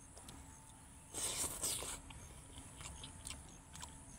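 A person eating rice and green beans by hand: soft chewing and small wet clicks, with fingers squishing rice on the plate. A louder, rustling stretch of eating noise comes about a second in and lasts just under a second.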